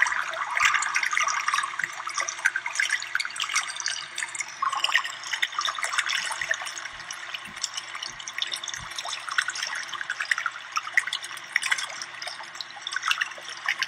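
Lake water lapping and splashing close by: a steady run of small splashes and trickling.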